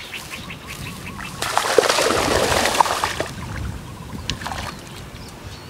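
A hooked striped snakehead thrashing at the surface of the pond near the bank. It gives one burst of splashing lasting nearly two seconds, about a second and a half in, with lighter water noises before and after.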